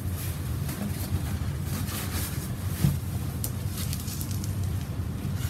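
Steady low hum, with light rustling of a paper shop towel as fingers spread wet mason bee cocoons across it, and a single sharp click about halfway through.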